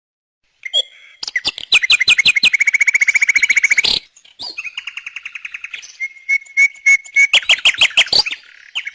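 Songbirds chirping and singing in rapid trills of quick repeated notes, starting about half a second in, with a brief break about four seconds in before more trills and chirps.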